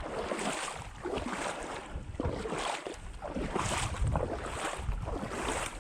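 Pond water sloshing around a person's waders as they wade through shallow water, swelling with each stride in a steady rhythm.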